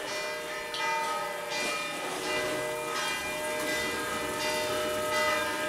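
Church bells ringing: one bell stroke after another, about every second, their tones overlapping and ringing on.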